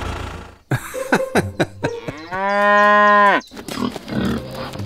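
A cow mooing once, one long steady call of about a second that drops away at the end. Before it come a few clicks and short falling squeaks.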